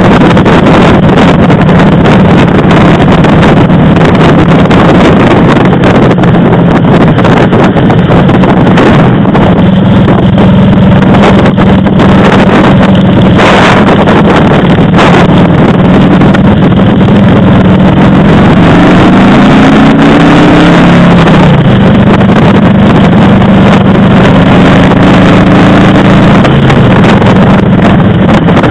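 A motorcycle engine runs under way beneath heavy wind noise on the microphone. Its note holds steady, then rises and drops back about two-thirds of the way through, and climbs again near the end. Two brief thumps come around the middle.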